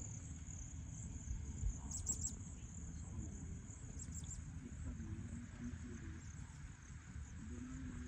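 Steady high-pitched insect chirring, with a few louder pulsing bursts about two and four seconds in, over a low rumble and faint distant voices.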